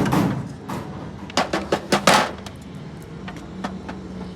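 A quick run of about five sharp knocks and clanks, beginning about a second and a half in, over a steady low hum.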